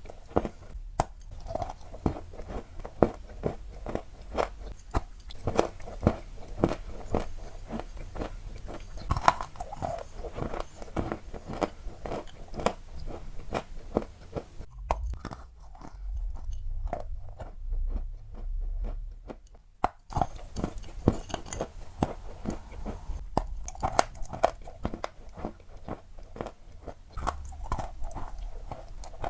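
Crunchy balls being crunched in a rapid, irregular run of crisp crackles. The crunching thins out for a few seconds past the middle, where a low rumble is heard.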